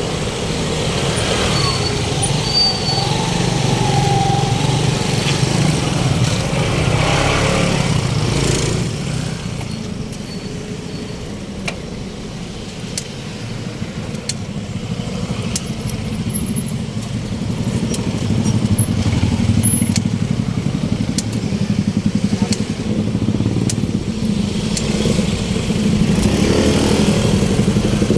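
Road traffic: motorcycle and car engines running close by, swelling and fading as vehicles pass, quieter for a few seconds in the middle.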